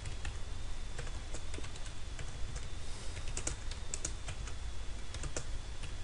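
Typing on a computer keyboard: irregular key clicks, coming in quick clusters about three seconds in and again after five seconds, over a steady low hum.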